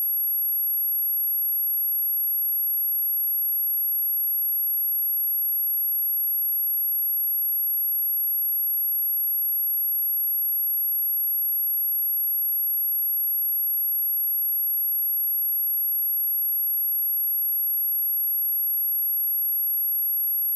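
A pure 11468 Hz sine-wave test tone, a single steady high-pitched whistle-like tone held at constant level without change, of the kind used to test speakers and to vibrate water and dust out of them.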